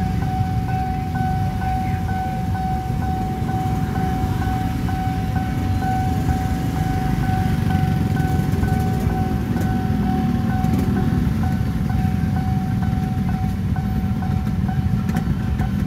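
Railway level-crossing warning alarm ringing a steady electronic tone repeated about twice a second, over the low rumble of a crowd of idling motorcycle engines waiting at the closed crossing.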